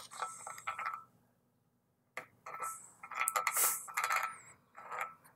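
Wooden stick scraping and tapping in a small plastic cup of mixed epoxy, in a few short runs of faint clicks and scrapes.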